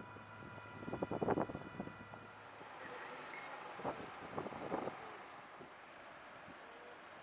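Fire engine running at the scene: a steady engine drone with a high whine that stops a couple of seconds in, and a few short knocks and clanks.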